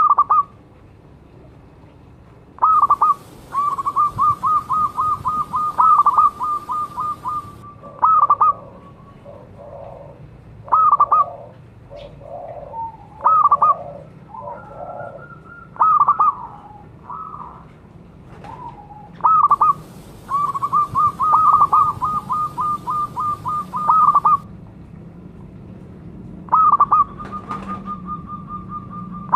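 Zebra dove (perkutut) singing in several bouts, each a loud opening coo followed by a quick run of short cooing notes. Softer, lower coos come between the bouts.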